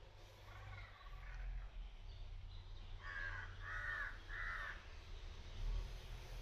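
A bird calls three times in quick succession about three seconds in, with fainter calls near the start, over a low steady rumble.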